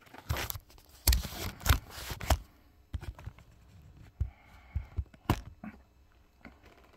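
Rustling and scraping handling noise as a phone camera is picked up and set in place, loudest in the first two and a half seconds, then a few scattered clicks and knocks.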